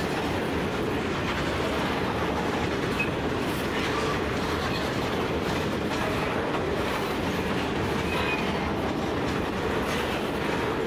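VHGF grain hopper wagons of a freight train rolling past, a steady rumble and clatter of steel wheels on the rails, with a couple of faint brief wheel squeals.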